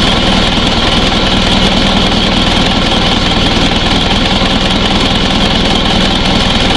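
Isuzu Panther's diesel engine idling steadily.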